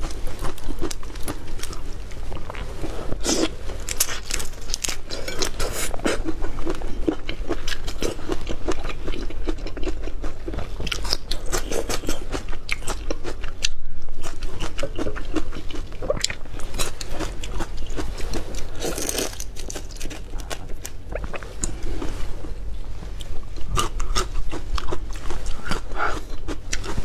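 Close-miked hand-peeling of a large marinated prawn: its wet shell cracks and crackles in a dense run of clicks. Around the middle the peeled meat is eaten, with biting and wet chewing, and near the end another prawn's shell is being pulled apart.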